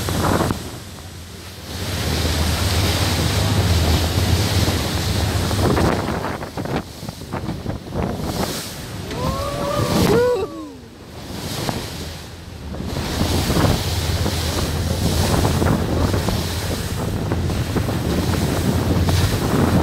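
Speedboat running on the river: a steady low engine hum under loud rushing water and wind buffeting the microphone. About halfway through, a brief high wavering cry rises over the noise.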